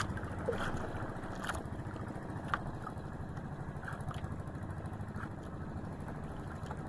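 A small boat engine running steadily at idle, with a couple of faint clicks.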